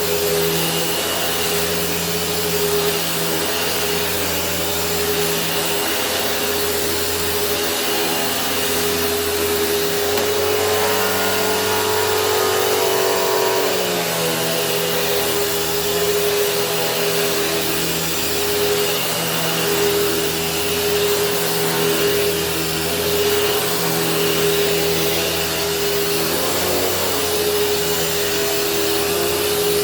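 Kenmore Progressive upright vacuum running steadily with a motor whine and its turbo brush roll spinning, the pitch shifting for a few seconds around the middle. The brush roll vibrates a lot, which the owner puts down to play somewhere in the housing.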